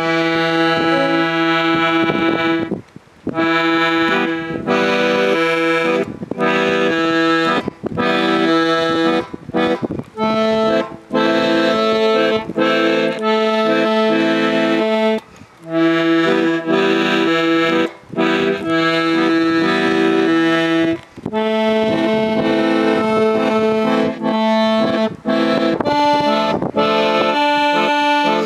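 Accordion playing a tune over held chords, with short breaks between phrases.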